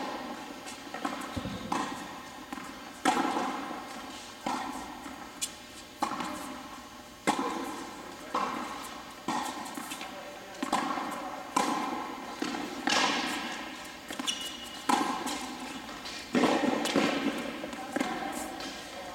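Tennis rally on an indoor court: racket strikes and ball bounces, a sharp pop every second or so, each echoing in the large hall.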